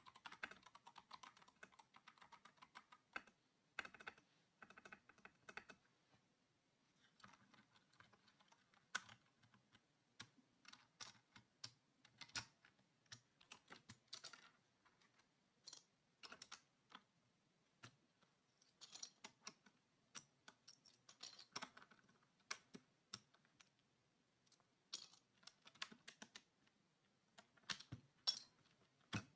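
Vortex VX8 mechanical keyboard: plastic key clacks and clicks in irregular bursts, with short pauses between them.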